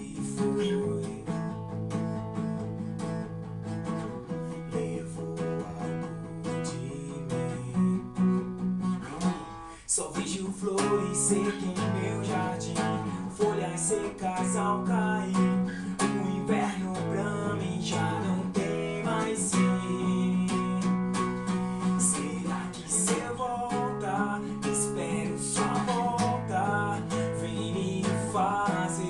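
Steel-string acoustic guitar strummed in a steady rhythm, accompanying a man singing, with a brief break in the strumming about ten seconds in.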